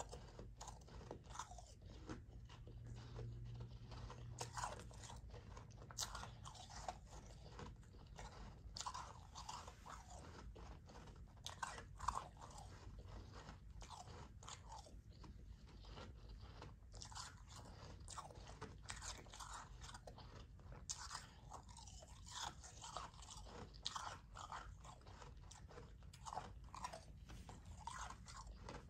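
A person chewing a mouthful of soft, powdery ice: a steady run of small, irregular crunches.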